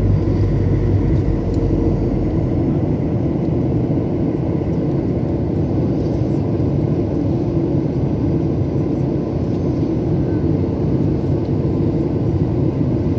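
Steady cabin noise of a Ryanair Boeing 737 jet airliner in flight, heard inside the cabin at a window seat: an even engine and airflow rumble with a faint steady hum running through it.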